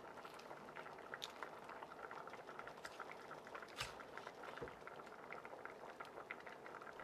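Faint wet crackling with scattered small clicks as a knife cuts through the skin, meat and joint of a roast turkey leg on a plastic cutting board.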